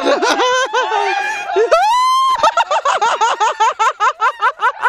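Young men laughing and shouting, with one long high-pitched yell about two seconds in, followed by rapid, rhythmic bursts of laughter.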